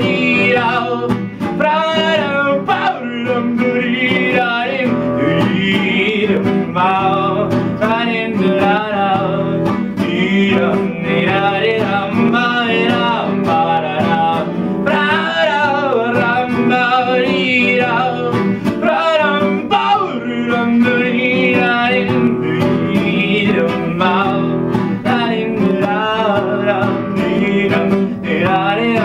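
Acoustic guitar played as accompaniment to a singing voice, a steady song with no break.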